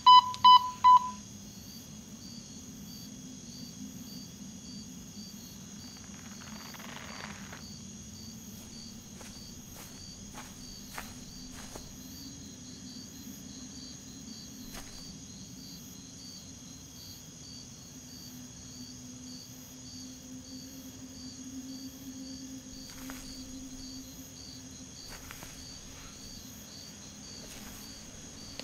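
Walkie-talkie giving three short beeps as its buttons are pressed, then crickets chirping steadily at night over a low, even hum, with a few faint clicks.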